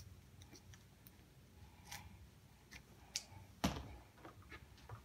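Faint scattered clicks and taps from hand work on a vinyl convertible top, with one sharper click about three and a half seconds in.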